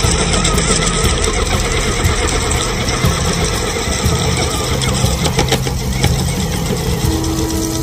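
A motor running steadily with a low rumble, with a few crackles about five seconds in and a steady hum joining near the end.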